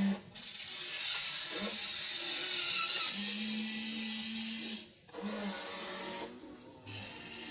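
Small electric motors of a WLtoys RC excavator whirring in short spurts as the arm and bucket work. A steady hum starts and stops several times, with a brief pause about five seconds in.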